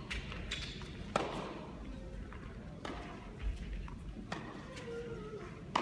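Tennis rally: rackets striking the ball back and forth, a string of sharp pops roughly one and a half seconds apart.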